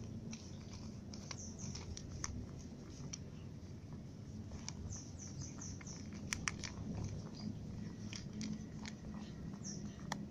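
Cat crunching dry kibble from a clear plastic tub: irregular crisp crunches and clicks, with a quick cluster about six seconds in.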